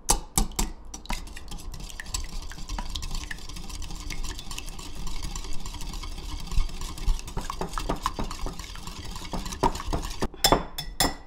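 A wire balloon whisk beating two raw eggs in a ceramic bowl makes a fast, continuous clicking and swishing as the wires strike the bowl. A few louder knocks come near the end.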